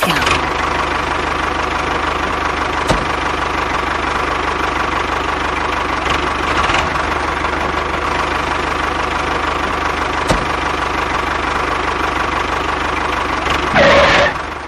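An engine running steadily, with a brief louder surge near the end.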